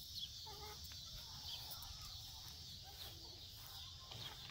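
Quiet outdoor background: a steady high insect hum with faint bird calls and a low rumble.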